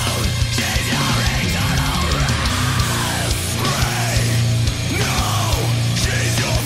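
Heavy metal song playing: distorted guitars over fast, heavy drumming.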